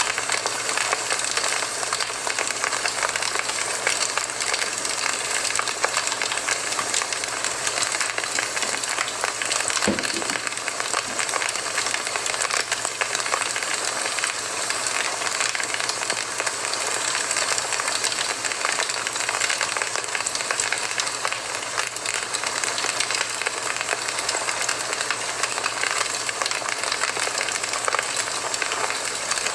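Campfire burning steadily, wood crackling and hissing, with one louder pop about ten seconds in.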